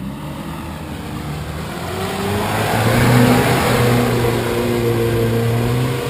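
Soft-top Land Rover's engine pulling hard under load as it climbs a steep, slippery dirt slope. It grows louder from about two seconds in and holds a steady pitch.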